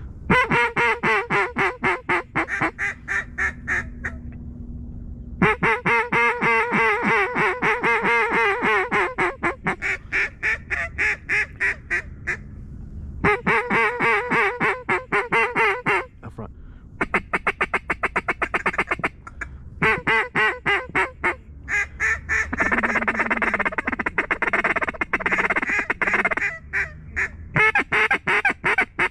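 Mallard duck call blown in quick runs of quacks and chatter, about six notes a second, in bursts of a few seconds with short breaks, calling to incoming mallards.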